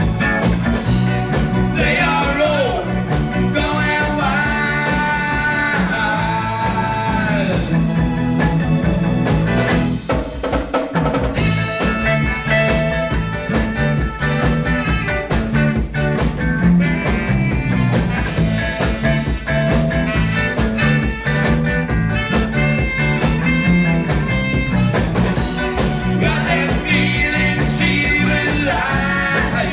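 Rock music played by a band, with a steady beat and sliding melodic lines.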